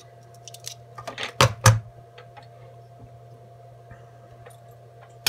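A few small handling clicks, then two sharp knocks about a second and a half in, as a steel digital caliper is set down on a wooden desk. A faint steady hum runs underneath.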